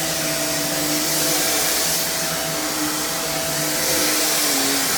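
Hoover React Professional Pet Plus UH73220 upright vacuum running steadily with a constant hum, its brush roll spinning on carpet with the floor sense switched off.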